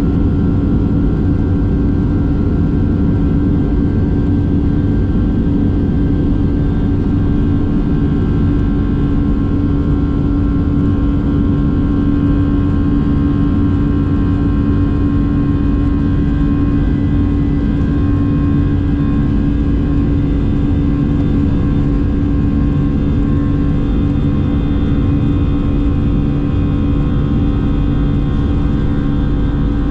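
Boeing 757-300 jet engines running steadily: a constant deep drone with a strong low hum and a fainter high whine, holding level throughout.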